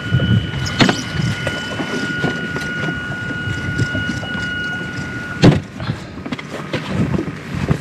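A steady high-pitched electric whine holds for about five seconds and then stops, with a sharp knock as it ends. A click comes about a second in, over low hull and wind noise.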